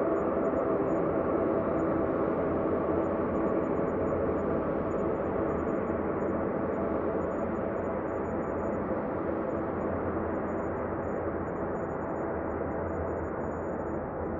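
Ambient space drone: a dense, steady wash of layered sustained tones with a low hum beneath, easing a little in level over the span.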